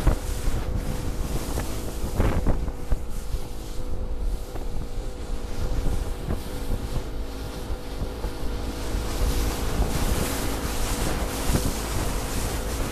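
Fishing boat under way at speed: a steady engine drone with strong wind buffeting on the microphone and water rushing past the hull. Occasional thumps come as the hull hits the chop, the clearest about two seconds in.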